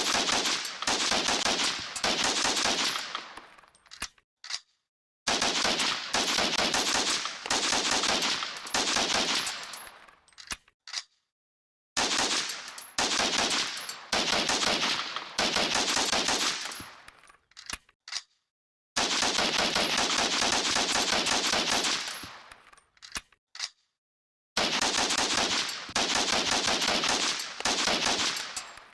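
M1 carbine gunfire sound effect: five bursts of rapid shots, each a few seconds long and trailing off, with a few single shots after most of them.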